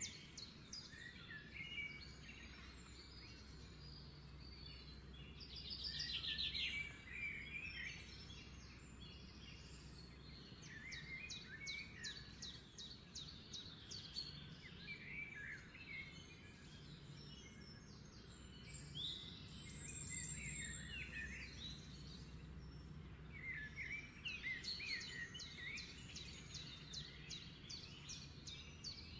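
Faint birds chirping and trilling outside in several bouts, over a steady low hum.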